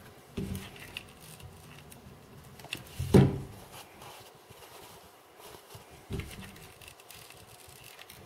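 Hands handling and pressing cotton fabric being glued around a doll body, soft rustling, with three dull knocks on the tabletop, the loudest about three seconds in.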